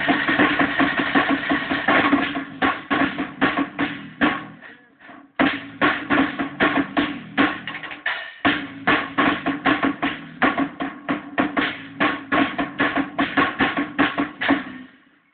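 Drum kit played in a steady rhythm of strikes together with a guitar. The playing fades out about four seconds in and starts again abruptly a second later, breaks briefly, then dies away just before the end.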